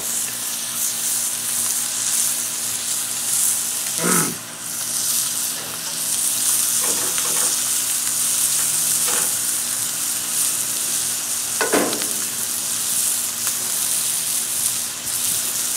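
T-bone steak sizzling steadily on a hot ridged cast iron griddle pan, its freshly flipped side searing. A few short downward-gliding sounds cut through the sizzle, the clearest about four seconds in and near twelve seconds in.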